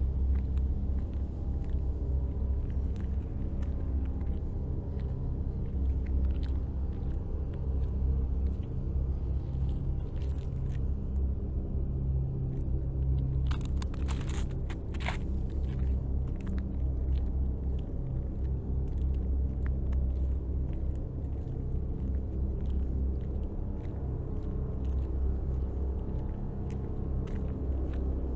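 Wind buffeting the microphone as a steady low rumble, with footsteps crunching on snowy, icy asphalt and a few sharper crunches about fourteen to fifteen seconds in.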